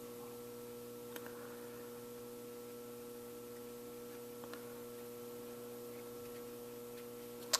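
Steady electrical mains hum, a low buzz with several fixed tones. There are two faint light clicks, about a second in and midway, and a sharper click near the end.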